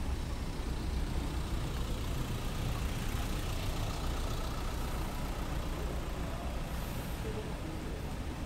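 A car engine idling over a steady low rumble of street traffic.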